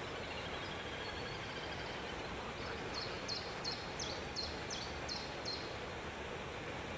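A bird calling in a run of about eight quick, high notes, each falling in pitch, about three a second, starting about three seconds in. Under it runs a steady hiss of background noise.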